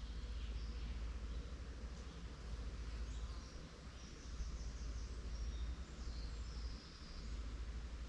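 Forest ambience: small birds chirping and trilling high up, busiest in the middle, over a steady low rumble.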